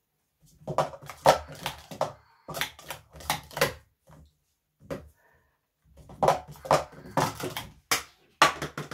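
Plastic sport-stacking cups clacking and tapping on the stacking mat as they are rapidly upstacked and downstacked. The sound comes in two quick runs of sharp clicks, with a pause of about two seconds between them.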